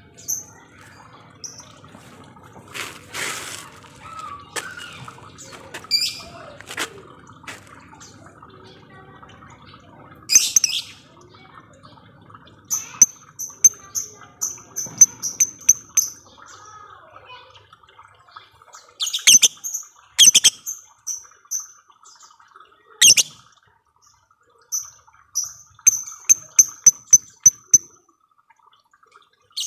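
Lovebirds calling: a few loud, sharp shrill screeches and two long runs of rapid high chirps, about five a second, in the lovebird's 'ngekek' chatter.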